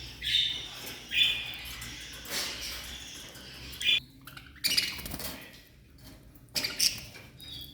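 Cage birds (cockatiels, budgerigars and canaries) calling: a series of short, high chirps and squawks, with two louder, harsher squawks about five and seven seconds in.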